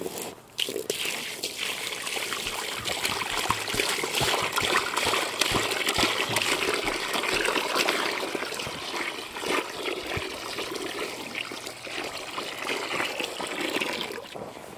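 Water from a garden hose running steadily into a rubber pan, splashing and trickling, from about half a second in until it eases off near the end.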